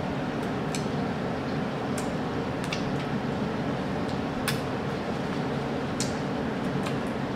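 Wet lip smacks and sucking clicks as sauce-covered fingers are licked clean: several short sharp clicks at irregular intervals, over a steady low background hum.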